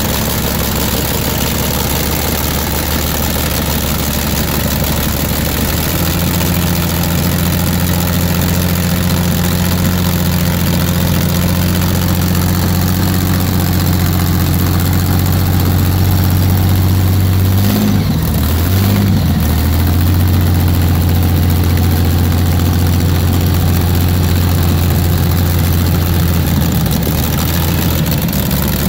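Rolls-Royce Merlin V12 aero engine of a vintage hydroplane running on short open stub exhaust pipes, still warming up after a cold start. About six seconds in it steps up to a higher steady speed, the revs dip and pick up briefly around the middle, and it eases back near the end.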